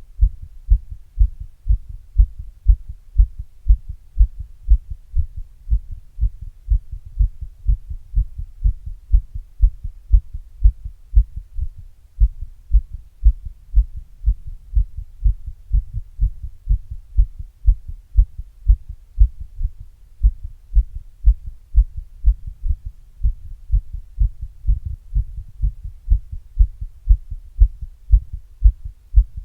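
Human heartbeat picked up through an earbud microphone held in a glass against the chest: an even, unbroken rhythm of low, muffled lub-dub thumps.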